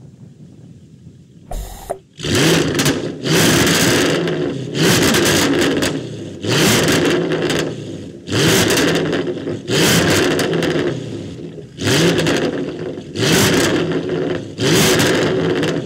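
Jaguar F-Type's supercharged 5.0-litre V8 through a Capristo valved exhaust with the valves open. After a couple of seconds of quiet idle it is blipped repeatedly, each rev rising sharply and falling back to idle.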